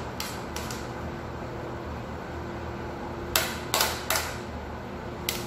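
Utensil scraping and knocking chopped salad vegetables off a plastic tray into a bowl. A few sharp clicks, with the loudest three coming close together about three and a half seconds in.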